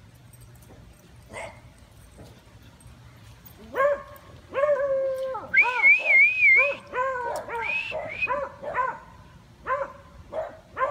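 Beagle baying: a run of loud, drawn-out bays and yelps starting about four seconds in, one held on a wavering pitch.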